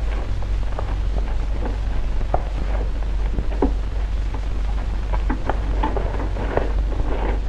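Hum, hiss and crackle of an old film soundtrack: a steady low hum under an even hiss, with scattered short crackles throughout.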